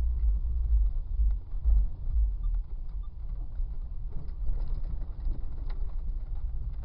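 Low, steady rumble of a 1999 Jeep Cherokee XJ driving slowly over a rough, muddy dirt trail, heard from inside the cab, with a few faint knocks and rattles. The rumble is heaviest for the first couple of seconds, then eases a little.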